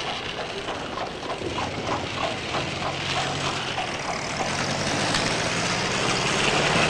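A motor vehicle engine running steadily and growing slightly louder, with a run of short high chirps over it in the first few seconds.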